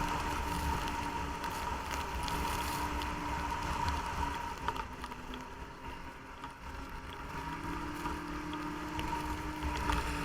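Snowmobile engine running under way with a steady whine, easing off about halfway through and picking up again near the end.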